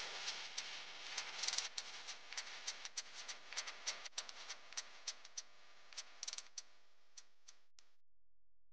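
Faint crackling: irregular sharp clicks over a soft hiss, growing sparser and stopping about eight seconds in.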